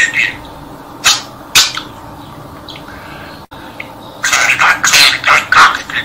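Talking budgerigar repeating the Turkish tongue twister 'Karga karga gak dedi, çık şu dala bak dedi' in its high budgie voice: a few short phrases in the first two seconds, then a longer quick run of phrases from about four seconds in.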